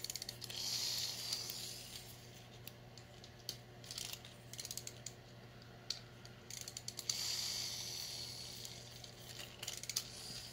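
Small plastic Minion toy figure clicking as it is turned and twisted in the hands, with many scattered light clicks and two short stretches of soft hiss, one near the start and one about seven seconds in.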